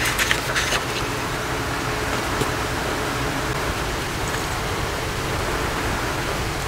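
Steady hissing background noise, with a few quick paper rustles or clicks in the first second as the guidebook is handled.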